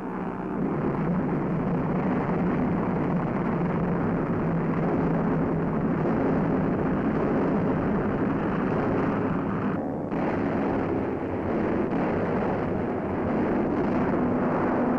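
Steady drone of piston-engine warplanes in flight: a dense engine noise with a low hum whose pitch shifts slightly, dipping briefly about ten seconds in.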